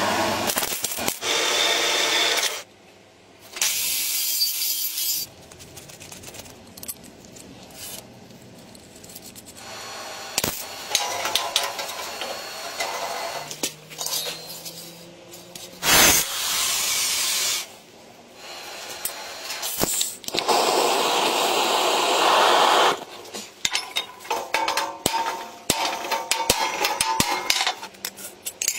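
Metalworking on steel in a series of short cuts: stretches of scraping and grinding, each a second or two long, with quieter handling and metal knocks in between. One sharp, loud knock comes about halfway through.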